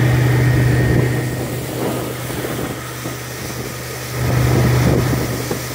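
Suzuki outboard motor running steadily with a low hum as the boat moves along, over the rush of wake and wind. It drops somewhat in the middle and picks up again about four seconds in.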